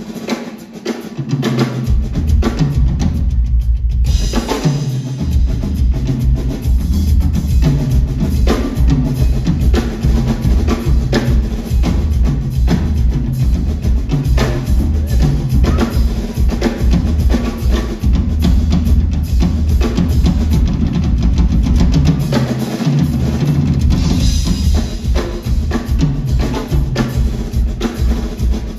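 Live drum kit played busily, with kick drum, snare and cymbals, over an electric bass line of stepping low notes, as heard from the audience in a concert hall. The playing thins out briefly a few seconds in, then the full groove comes back in.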